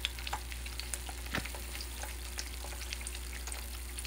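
Eggs frying in oil in a non-stick pan: a steady sizzle with scattered small pops and crackles.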